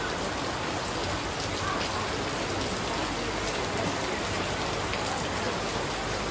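Steady rain falling on hard surfaces, a continuous hiss with scattered drops ticking.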